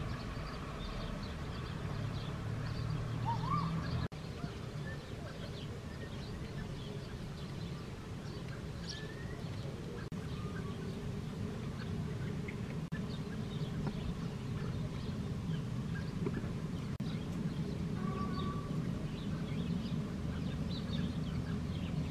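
Birds calling, scattered short chirps and a few brief rising calls, over a steady low rumble. The sound changes abruptly about four seconds in.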